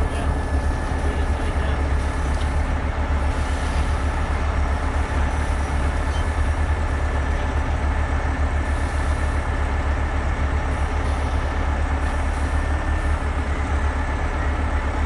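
Rotator tow truck's diesel engine running steadily: a continuous low rumble with a faint steady whine above it.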